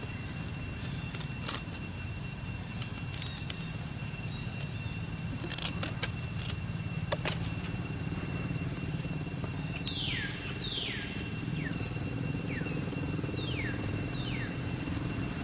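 A steady low engine rumble with a few sharp clicks, and a run of about six quick falling chirps starting about ten seconds in.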